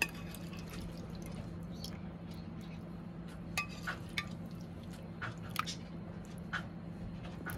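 Soft wet plops and light clicks, scattered and irregular, as cubes of set jelly are spooned into a glass jug of milky sago drink, over a steady low hum.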